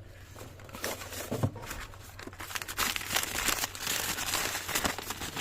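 Plastic packaging crinkling and rustling as a new ignition coil is handled, with small clicks and handling knocks, growing busier about halfway through.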